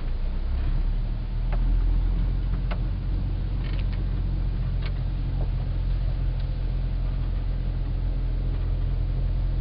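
VW bus engine running steadily at low speed, heard from inside the cab, with a few short clicks and rattles in the first five seconds or so.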